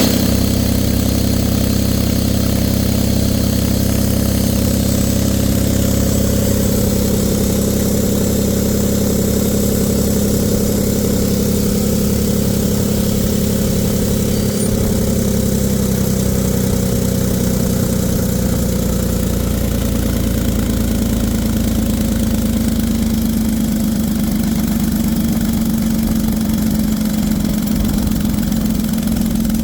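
Smith air compressor running steadily at idle, a continuous engine drone whose pitch wavers slightly.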